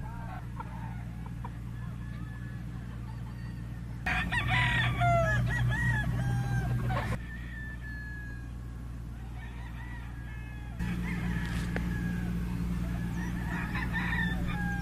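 Chickens clucking and a rooster crowing, many short pitched calls over a steady low hum. The calls grow louder for about three seconds starting around four seconds in, and again from about eleven seconds.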